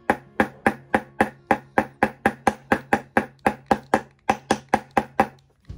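Small hammer tapping on a miniature house frame in quick, even strokes, about three or four a second. There is a brief pause a little past four seconds, then a few more taps, and the tapping stops near the end.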